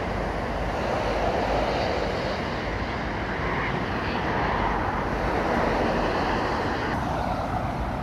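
Heavy road traffic passing on a busy main road: a continuous hiss of tyres and engines that swells and eases as vehicles go by.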